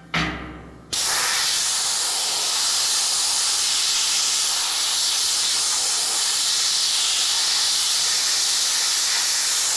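Pressure-pot sandblaster nozzle blasting compressed air and sand onto rusted steel, with the sand valve opened only slightly. After a brief burst, a loud, steady hiss sets in about a second in and holds.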